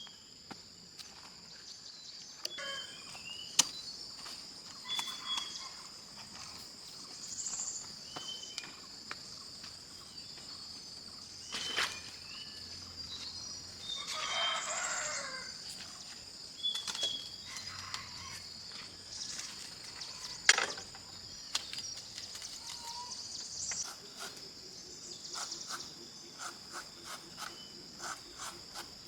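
Insects chirping in a steady high-pitched chorus, with scattered sharp knocks and a few short bird calls, one louder call about halfway through.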